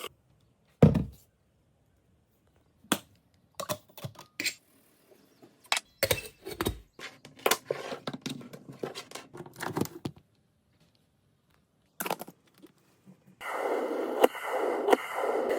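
Handling of a glass electric coffee percolator and its parts: a thud, then a run of scattered clicks, knocks and clinks. Near the end a steady rushing noise starts and holds.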